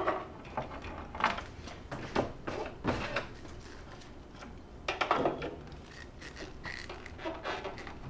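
Gloved hands fitting multimeter test leads onto the microwave transformer's primary terminals: scattered light clicks and taps with rustling of the wires, at irregular intervals.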